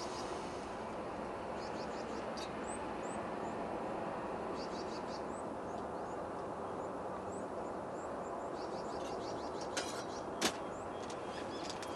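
Small birds chirping in short, high-pitched bursts over a steady rushing background noise, with two sharp clicks near the end.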